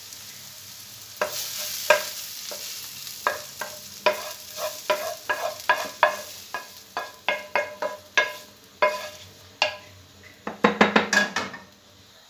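Wooden spoon scraping and knocking against a non-stick frying pan while fried onion is scooped out, a run of irregular sharp taps that briefly ring the pan, ending in a fast flurry of knocks near the end. Hot oil sizzles faintly underneath at first.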